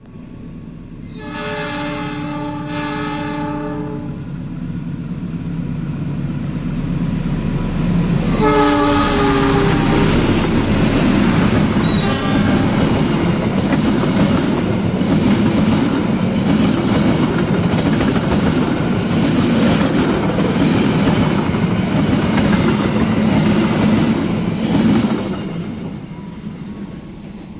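Gajayana express passenger train passing at speed. The diesel locomotive's horn gives a long blast, then a second, shorter blast about eight seconds in as the train arrives. The rush of wheels and coaches follows, with a rhythmic clickety-clack of wheels over the rail joints, and the noise fades away near the end.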